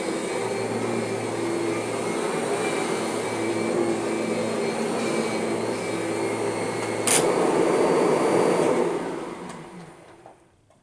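Kirby vacuum cleaner running with a steady hum and only a faint transmission whine left. About seven seconds in there is a click, the steady tone drops out and the sound gets briefly louder, then the motor winds down and stops near the end.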